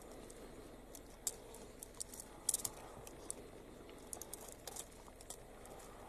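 Leopard feeding on a porcupine, faint and irregular sharp clicks and crunches as its teeth work at flesh and quills, over a steady low hum.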